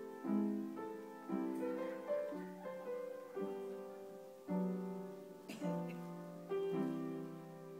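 Upright piano played slowly: chords and melody notes struck about once a second, each left to ring and fade.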